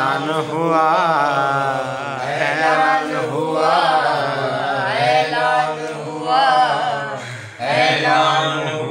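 A man's voice chanting a devotional Urdu kalam in a long, wavering melodic line. There is a short break for breath about seven and a half seconds in.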